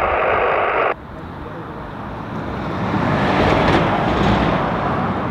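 Air traffic control radio chatter cuts off about a second in, giving way to jet airliner engine noise that grows louder over the next few seconds and then holds steady.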